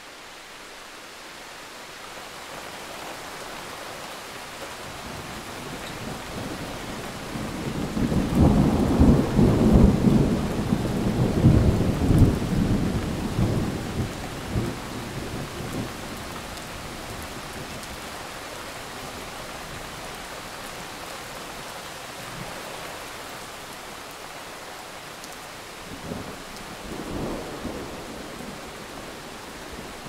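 Steady rain with a long roll of thunder that builds about eight seconds in, is loudest a few seconds later and rumbles away over several seconds. A fainter rumble of thunder comes near the end.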